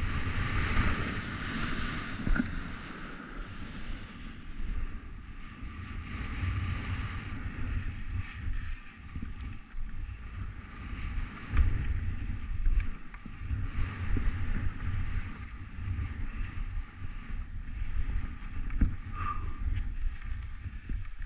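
Skis hissing and scraping through snow on a downhill run, with wind rumbling and buffeting on the microphone.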